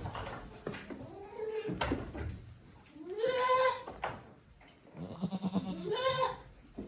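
Goats bleating in three separate calls: a faint one about a second and a half in, a longer, louder call rising in pitch about three seconds in, and another near the end.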